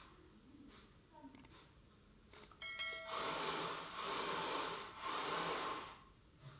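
A small homemade RC car's electric drive motors whirring in three short bursts as it drives across the floor, after a few faint clicks and a brief chirp.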